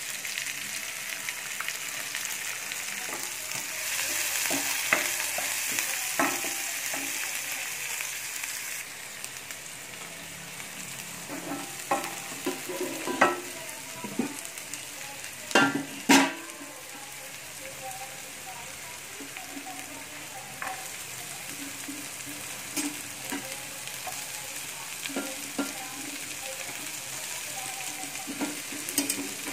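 Sliced onions sizzling in a little oil in a non-stick pan, stirred with a wooden spatula that scrapes and clicks against the pan. The sizzle swells for a few seconds, then settles, and two loud sharp knocks come about halfway.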